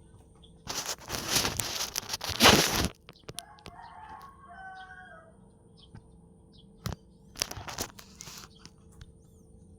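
Rooster crowing: a loud, harsh crow in the first few seconds, then a fainter pitched crow, with another short harsh burst later on.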